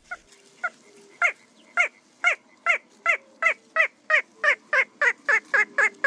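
Little crake calling: a long series of short nasal notes, each dropping in pitch. The notes speed up steadily from about two to about four a second, in the laugh-like run typical of the species.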